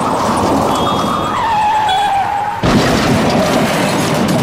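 Busy road traffic with motorcycles and auto-rickshaws passing, heard as a loud, continuous noise. About a second in, a whining tone slides down a little in pitch and holds for about a second. About two-thirds of the way through, the noise jumps louder.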